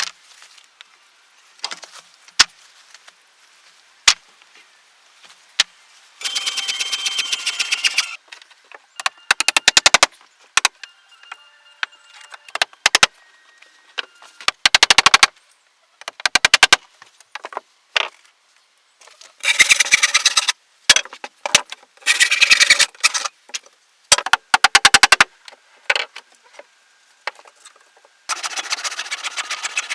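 Sped-up building and woodworking sounds, with irregular bursts of very rapid clicking and clatter, each lasting from a fraction of a second to a few seconds.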